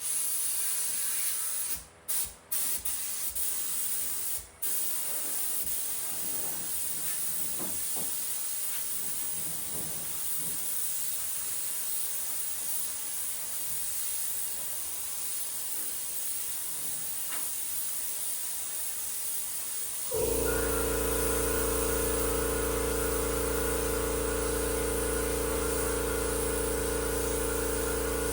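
Air spray gun hissing steadily as POR-15 paint is sprayed, cutting out briefly three times in the first few seconds. About twenty seconds in, a steady machine drone with a low hum starts suddenly alongside the hiss.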